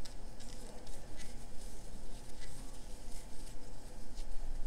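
Soft rustling and scraping of thick polyester cord drawn through stitches by a large plastic crochet hook as single crochet stitches are worked, with small irregular ticks.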